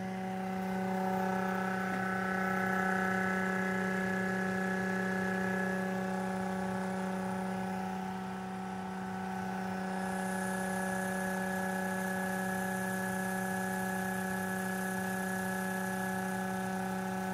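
A homemade neodymium-magnet motor/generator running, with a steady electrical hum at one unchanging pitch. A faint high hiss joins about halfway through.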